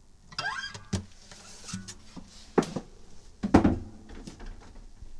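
Handling noise as an acoustic guitar is set down on its stand: a short rising squeak, then several knocks and thumps, the loudest about three and a half seconds in, with the guitar ringing briefly after the bumps.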